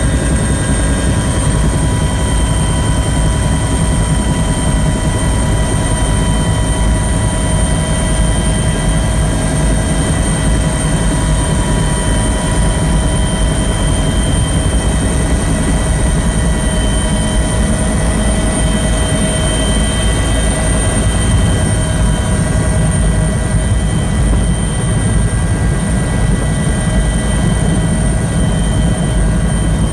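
Helicopter heard from inside the cabin: a steady low rotor rumble under a constant whine of several high, even tones from the turbines and gearbox, unchanged as it comes in to land on the helideck.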